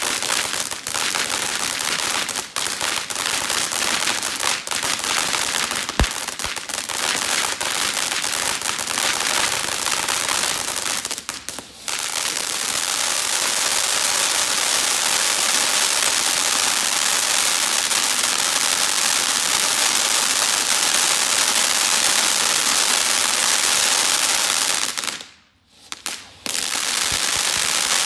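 KeyStone Fireworks Mega Monster Grand Finale fountain firework spewing sparks: a loud, steady hiss with dense crackling through the first twelve seconds or so and a smoother hiss after. It drops out briefly around twelve seconds in and for about a second near the end, between effects, then starts again.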